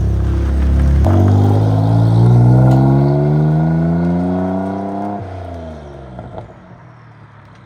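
Car engine pulling away and accelerating: its pitch rises steadily for about four seconds, then drops off as the throttle is released, and the sound fades away.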